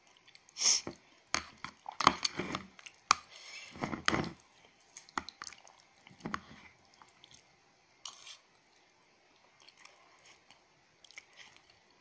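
A person chewing a mouthful of bamboo-shoot stew close to the microphone, with irregular crunching bites and wet mouth clicks. The chewing is loudest in the first half and thins out to faint clicks in the second half.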